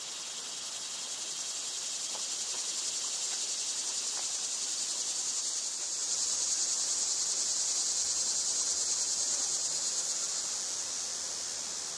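Steady high-pitched insect chorus with a fine, fast pulse. A faint low rumble joins about halfway through.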